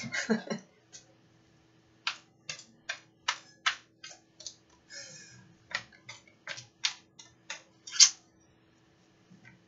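A deck of oracle cards shuffled by hand: a run of sharp card slaps and flicks, roughly two a second, the loudest about eight seconds in. A short laugh comes at the very start.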